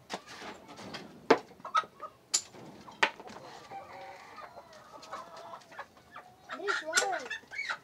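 Chickens clucking with a rooster crowing near the end, the call rising and falling in pitch; a few sharp knocks come in the first three seconds.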